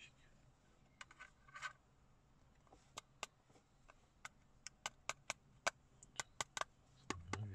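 Sharp, irregular clicks and light taps from the glass and frame pieces of a magnetic phone case with tempered-glass front and back as the halves are handled and knocked together. A few clicks come about a second in, most are packed into the second half, and a duller low bump comes near the end.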